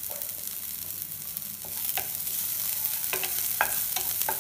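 Chopped onions and green chillies sizzling in hot oil in a nonstick pan, stirred with a wooden spatula that knocks against the pan a few times. The sizzling grows a little louder about a second and a half in.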